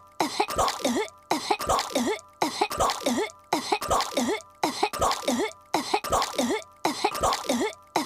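A cartoon girl's voice coughing on her gum: a short fit of a few coughs with a bending vocal pitch, looped so that the same fit repeats about once a second.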